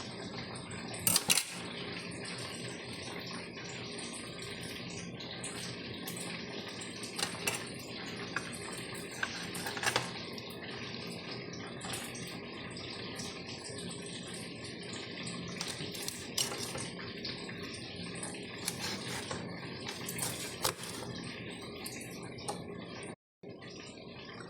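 Kitchen tap running steadily, with a few short clinks and knocks of dishes.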